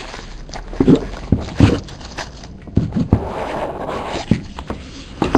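A trading card box being handled and opened: a string of irregular taps, knocks and light scrapes of cardboard and card packaging.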